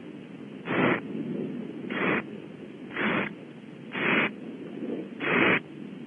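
Barn owl owlets giving raspy hissing begging calls, five in a row about once a second: the chicks' food-begging during a feed.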